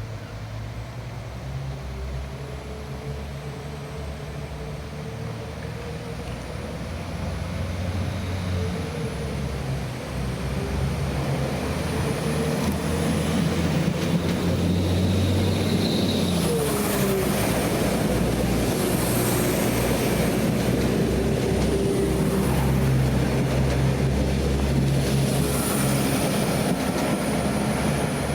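A train approaching and running through, growing louder over roughly the first half and then holding steady. A low steady hum runs underneath, with thin high-pitched squeals on top.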